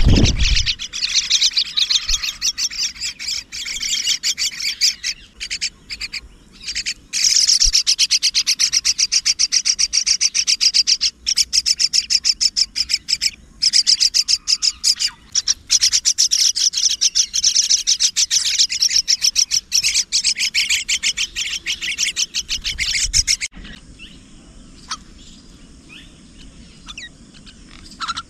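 Mynas at the nest chirping: a dense, fast run of high chirps that breaks off suddenly near the end, leaving a few scattered chirps.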